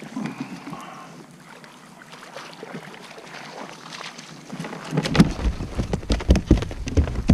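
Quiet outdoor air, then about five seconds in, wind starts rumbling on the microphone with irregular knocks and bumps.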